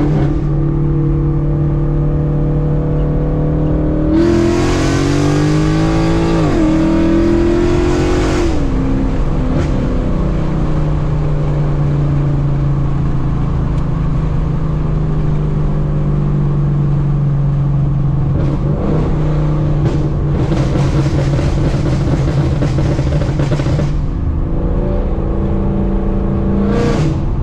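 Ford Mustang GT's 5.0 Coyote V8, straight-piped through long-tube headers, an X-pipe and no mufflers, droning at a steady cruise. About four seconds in it pulls hard with a rising pitch, with a gear change partway through, then settles back to cruising. A second louder, raspier stretch comes in later, and a short rising rev right at the end; the exhaust is loud.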